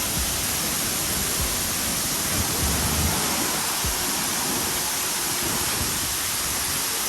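Man-made waterfall: a steady rush of falling water, with a few low bumps about three seconds in.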